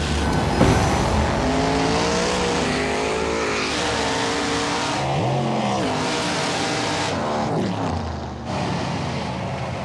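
Two drag-racing cars running side by side down the strip at full throttle, their engine pitch climbing repeatedly as they pull through the gears and falling away near the end of the run.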